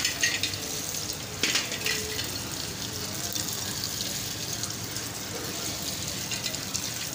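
A stream of water splashing steadily onto a heap of freshly blackened steel pistol magazines on a tiled floor, rinsing off the hot caustic bluing solution. Two short knocks cut through it, one right at the start and one about a second and a half in.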